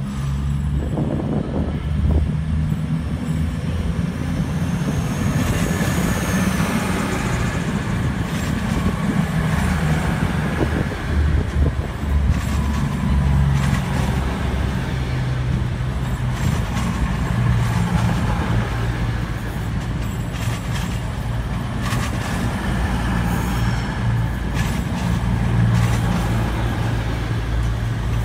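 CrossCountry Voyager diesel multiple unit's underfloor diesel engines running as the train rolls along the platform, a steady low drone.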